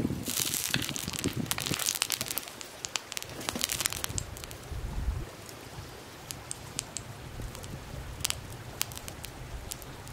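Irregular crackling and sharp pops from a wood stove fire with an oiled iron griddle heating on top, dense for the first couple of seconds and then sparser.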